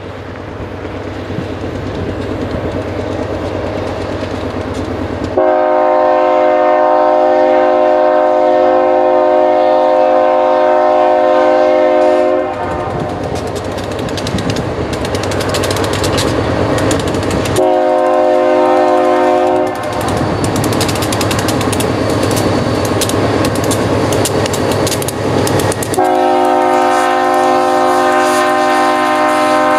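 Union Pacific diesel locomotive's horn sounding a chord of several notes, blown three times: a long blast of about seven seconds starting some five seconds in, a short blast of about two seconds, then another long blast near the end. Between the blasts the locomotives' engines rumble as they draw near and pass.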